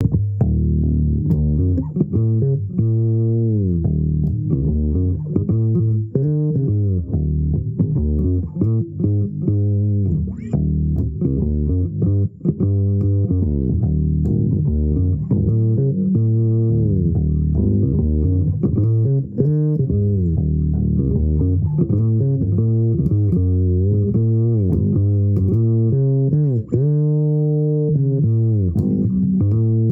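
Bass guitar played solo, a continuous improvised line of low notes with frequent slides between pitches.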